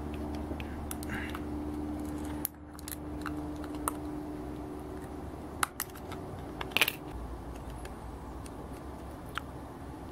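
Scattered sharp clicks and ticks of small 3D-printed plastic parts being handled and fitted by hand, over a low steady hum.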